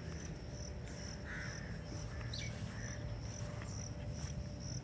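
Insect chirping in a steady high pulse, about two or three chirps a second, while a bird calls twice in the first half, over a low rumble.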